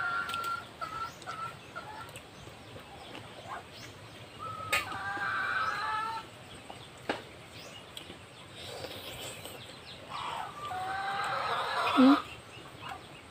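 Domestic chickens clucking in several bouts, with a couple of sharp clicks and a short, louder low sound near the end.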